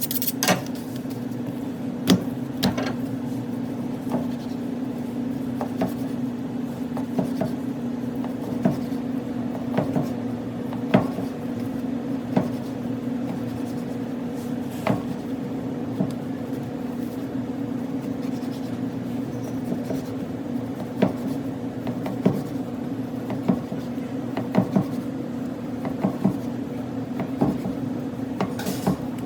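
Butcher's knife cutting a veal striploin on a cutting board: irregular sharp knocks and taps every second or two, over a steady electrical hum.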